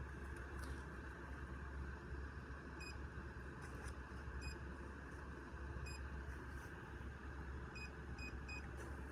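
Short, identical high beeps from a 3D printer's touchscreen as the Z-offset plus button is tapped, six in all, the last three in quick succession near the end. Each beep confirms a press that raises the nozzle a small step while the Z offset is being set. A steady low hum runs underneath.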